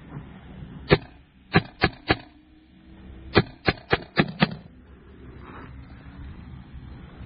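Magfed paintball marker firing in semi-auto shots: a single shot, then three quick shots, then a string of five about four a second.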